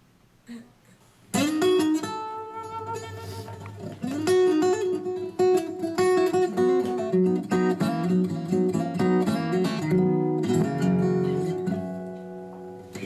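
Guitar music played back through an ASUS Cine5 soundbar speaker, starting suddenly about a second in after a near-quiet moment.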